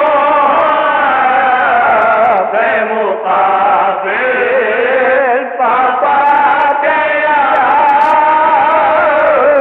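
An Urdu nauha, a Shia lament, chanted in a long wavering melodic line. It is an old recording with a dull, muffled top.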